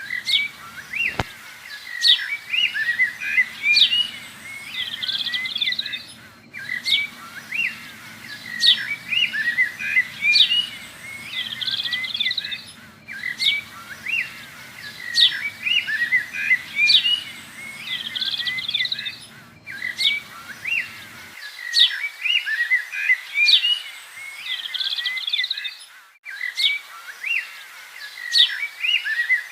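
Many small birds chirping and twittering, a recorded loop that repeats about every six and a half seconds. A low hum underneath cuts off about two-thirds of the way through.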